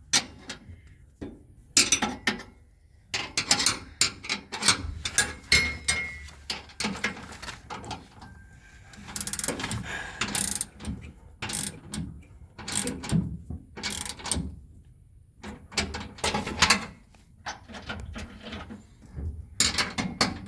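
Hand ratchet clicking in irregular bursts with short pauses, tightening the tow bar's mounting bolts.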